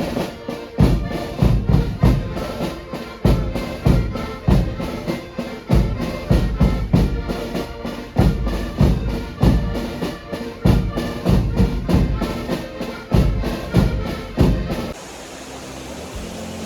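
Background music with a strong, steady beat that stops abruptly about 15 seconds in, leaving a quieter, steady low rumble.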